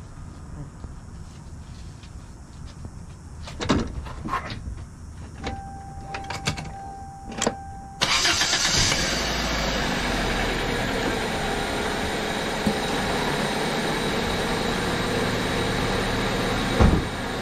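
A few sharp clicks and a short steady tone, then about eight seconds in the 1995 Toyota Corolla's 1.8-litre four-cylinder engine comes on abruptly and keeps running with a loud, steady rush. A couple of knocks sound near the end.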